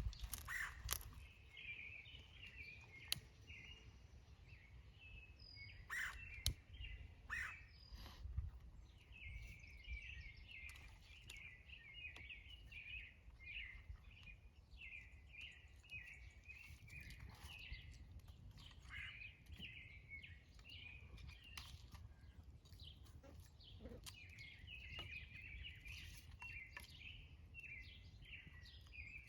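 Small birds chirping repeatedly in quick, busy runs, faint, with a few sharp snaps or clicks in the first several seconds.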